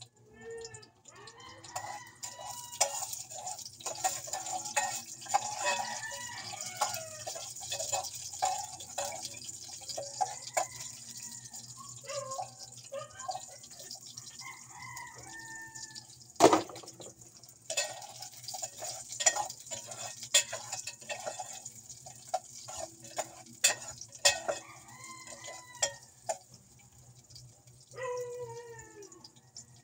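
Chickens clucking and calling, with a rooster crowing near the end. Sharp clicks and knocks are scattered throughout, the loudest about halfway, over a steady high hiss.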